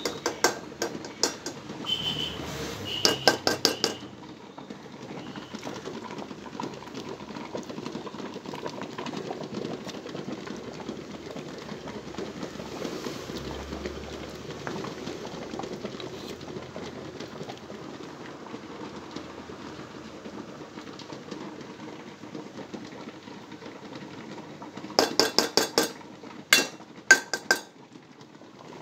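Steel spoon clinking and scraping against a steel bowl while working a honey mixture, in quick runs of taps near the start and again near the end. In between there is a steady hiss.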